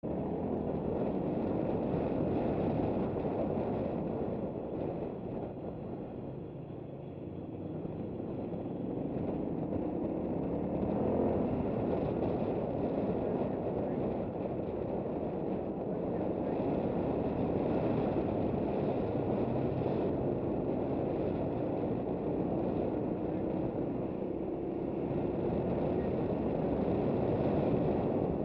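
KTM 990 Adventure's V-twin engine running under way on a gravel road, mixed with wind noise on the microphone; the engine pitch rises and falls with the throttle about ten seconds in.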